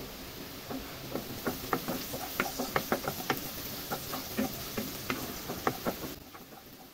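Wooden spatula stirring sliced onions in hot oil in a non-stick kadai, with irregular light knocks and scrapes against the pan over a faint sizzle. The stirring and sizzle die away about six seconds in.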